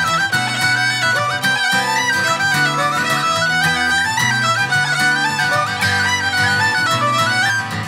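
Fiddle, tin whistle and acoustic guitar playing a fast Irish reel: the fiddle and whistle carry the quick, running melody together over strummed guitar chords.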